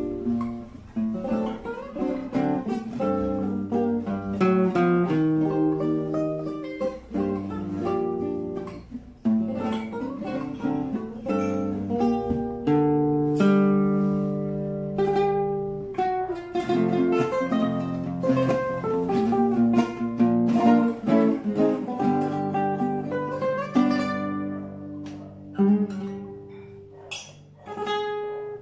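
Solo nylon-string classical guitar played fingerstyle: a plucked melody over bass notes, with a few sharp strummed chords near the end.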